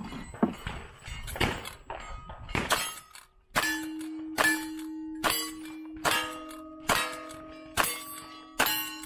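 Lever-action rifle shots, fired about one every 0.8 seconds from about three and a half seconds in, each followed by the clang of struck steel targets over a steady ringing. In the first three seconds there are a few scattered knocks.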